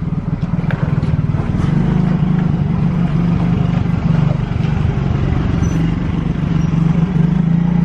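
An engine running steadily without revving: a low, even drone.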